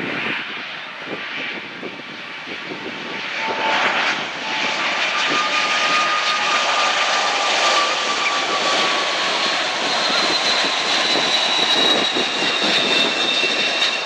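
British Airways Boeing 747-400's four jet engines on final approach at low thrust: a rushing rumble with high engine whines, swelling louder about four seconds in as the jumbo comes close, the whines then sagging slowly in pitch as it passes.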